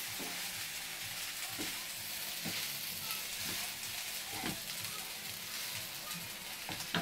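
Prawn fried rice with broccoli sizzling in a frying pan as it is stirred and tossed with a wooden spatula, with soft knocks of the spatula against the pan about once a second.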